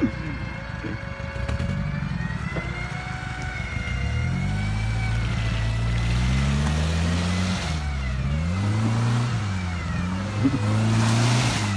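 Off-road 4x4 engine running, then revving up and down several times from about four seconds in, with dips around the eighth and ninth seconds, as a stuck vehicle is driven or pulled out of mud.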